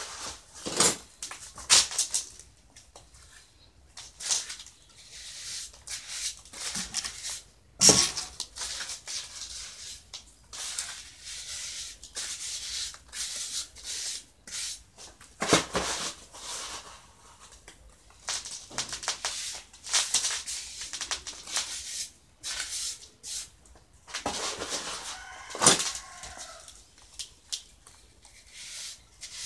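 Trowel blade and hands scraping and packing wet, gritty cement mix: irregular scrapes and rubs with occasional sharp knocks of the blade.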